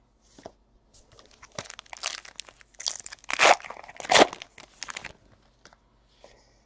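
A 2017 Panini Elite Extra Edition baseball card pack being torn open, its wrapper crinkling: a run of rustling tears, loudest about three and a half and four seconds in.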